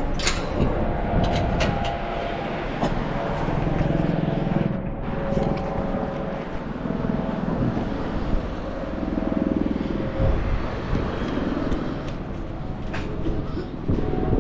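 Outdoor street ambience with motor traffic running past.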